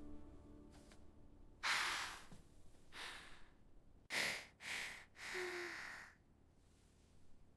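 A run of five short breathy gasps and sniffs from an animated cat character over about four seconds, the first and third starting sharply.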